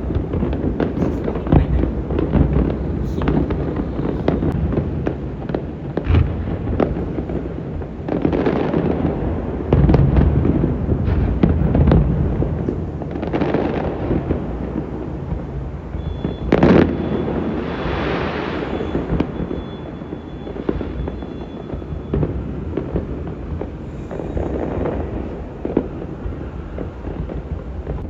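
Fireworks display: a continuous run of booming bursts with deep rumble, and swells of crackling about eight, thirteen and seventeen seconds in.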